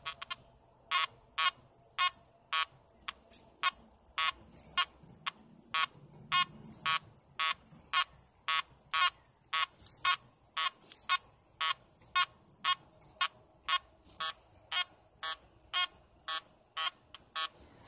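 Makro Multi Kruzer metal detector in deep mode sounding a target signal: a short beep of one mid-pitched tone each time the coil swings over the buried target, about two beeps a second.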